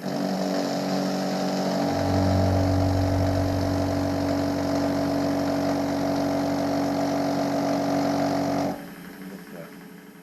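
Milling machine running a facing cut on a pair of blocks clamped in the vice: a steady mechanical hum with several steady tones starts abruptly, deepens about two seconds in, and cuts off shortly before the end.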